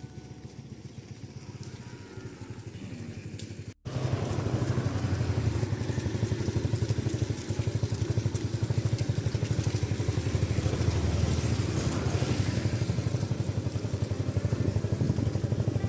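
After an abrupt cut about four seconds in, a small engine runs steadily with a fast, even beat.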